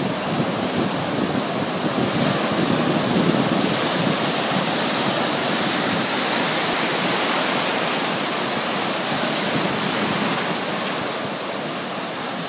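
Ocean surf breaking and washing up the beach in a steady, dense rush.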